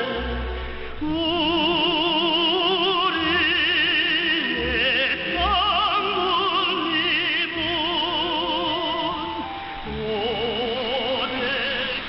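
Vocal music with heavy vibrato, received over a shortwave AM broadcast through a narrow 4 kHz receiver bandwidth, so it sounds thin and muffled.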